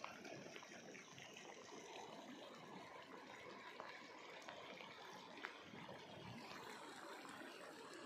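Faint, steady rushing of a shallow stream flowing over rocks.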